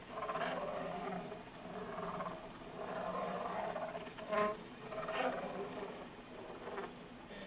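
Motors of a homemade rotary pen-plotter drawing machine whining in a series of runs, each a second or two long, the tone changing from run to run as the pen arm and round table move. Two brief louder peaks come a little past the middle.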